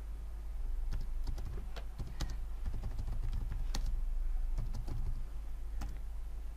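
Computer keyboard typing: a run of irregular keystrokes, over a steady low hum.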